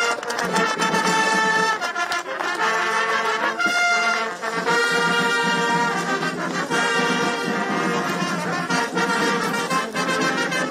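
Brass band music: a tune of long, held brass notes that change every second or two.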